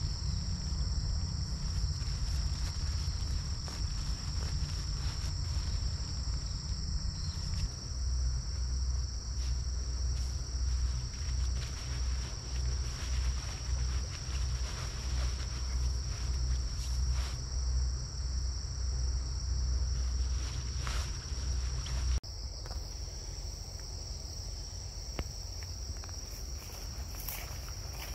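A steady, high-pitched chorus of insects drones on throughout, over a low rumble and scattered small clicks and rustles. The rumble drops away abruptly a few seconds before the end.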